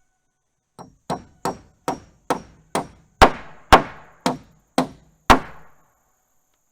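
Hammer driving 3.5-inch smooth nails into wooden porch floor boards: eleven blows at about two a second, starting with a light tap and growing harder, the loudest a little past halfway.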